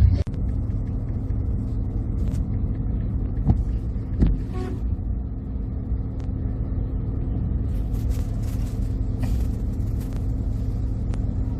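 Vehicle engine running steadily, a low rumble, with scattered short clicks and knocks over it.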